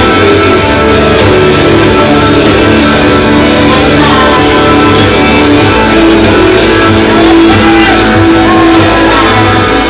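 Loud music with guitar, playing continuously.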